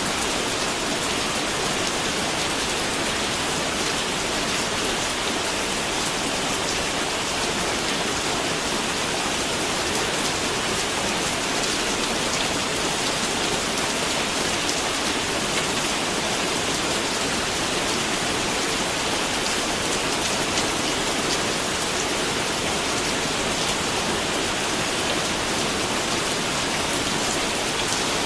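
Steady rain falling, an even hiss with many small drops pattering on a surface.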